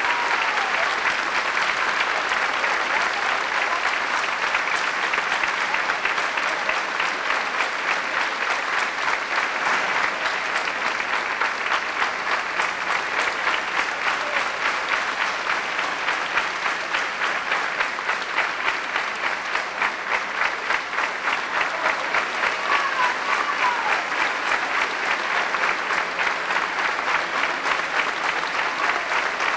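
Theatre audience applauding: a long, even ovation of many hands clapping.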